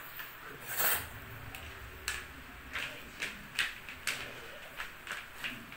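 Pot of sinigang broth boiling, with irregular short pops of bubbles about twice a second over a faint hiss, and one louder hissing burst about a second in.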